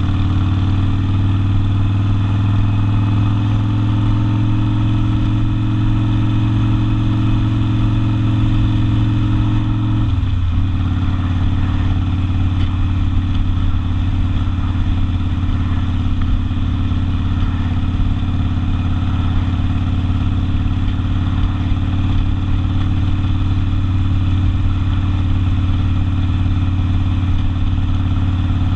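Harley-Davidson Sportster's V-twin running through an open exhaust while riding. The note climbs slightly at first, drops abruptly about ten seconds in, and then holds steady.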